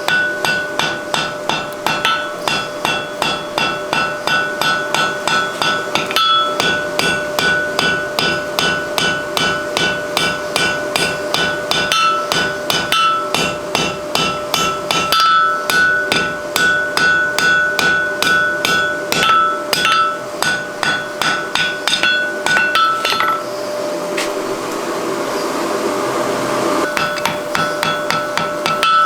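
Hand hammer striking hot mild steel on an anvil, shaping a forge-welded collar into a ball: quick, steady blows about three a second, with the anvil ringing between them. Near the end the hammering stops for about three seconds while a steady rushing noise is heard, then starts again.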